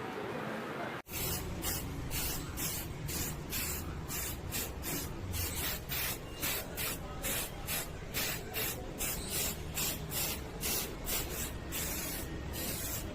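Aerosol spray paint can hissing in short, repeated bursts, about two a second, as paint is sprayed onto a bicycle frame. The bursts run together into a steadier hiss near the end.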